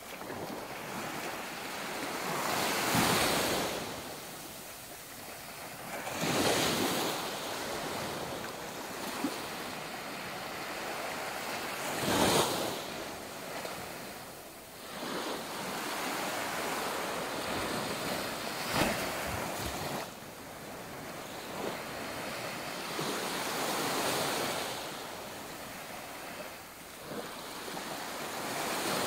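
Small waves washing up and breaking on a sandy shore, surging every few seconds, with wind buffeting the microphone.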